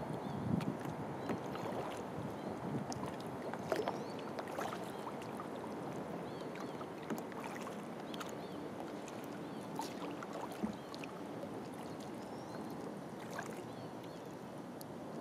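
Kayak being paddled on calm water: a steady wash of water along the hull, with scattered small drips and splashes from the paddle.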